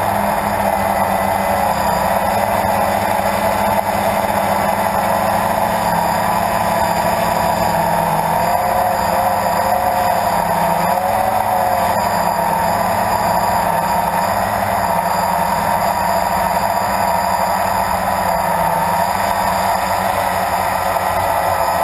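Blade 350 QX2 quadcopter's four electric motors and propellers buzzing steadily in flight, their pitch wavering up and down briefly about halfway through as the drone manoeuvres.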